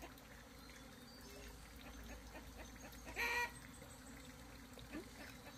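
A chicken gives one short call about three seconds in.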